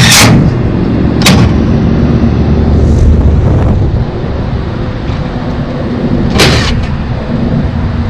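Rooftop air-conditioning unit running with a steady low hum, broken by three short, loud rushes of noise: one at the start, one about a second later and one about six and a half seconds in.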